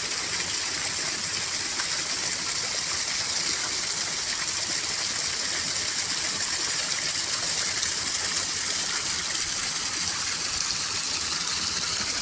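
Flowing water rushing steadily over rocks, a constant hiss that does not let up.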